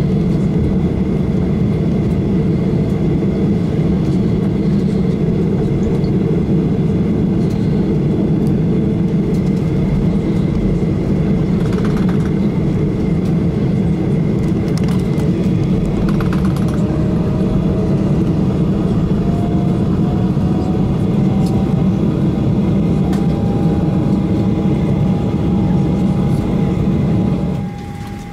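Steady cabin noise of a Boeing 737-800 taxiing after landing, its CFM56 engines at idle, with a faint tone slowly rising in pitch in the second half. The noise drops abruptly about a second before the end.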